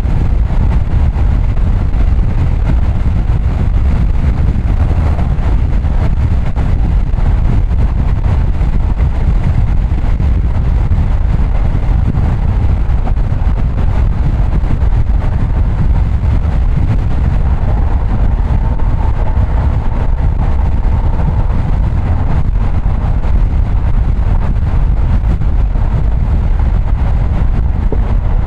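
Car driving on city streets, a steady low rumble of road and engine noise.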